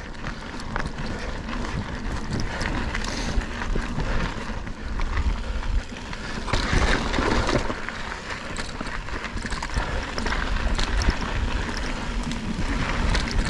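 Mountain bike rolling fast downhill on a dry dirt trail: wind buffeting the microphone and tyres rumbling over the ground, with scattered clicks and rattles from the bike.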